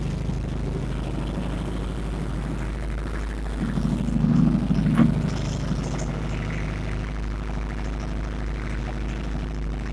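Small motorboat's engine running steadily with a low hum, heard from aboard the boat. It swells briefly about four seconds in and ends the swell with a short knock.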